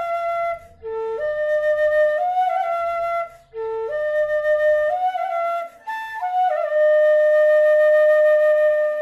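Bamboo bansuri in C natural playing a slow melody: short phrases of a few notes stepping upward, each ending with a brief breath. It closes on one long held note near the end.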